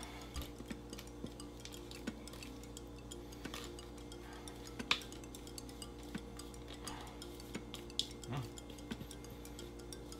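A utensil scraping and tapping against a bowl of banana bread batter: scattered light clinks, one sharper knock about five seconds in, over a steady low hum.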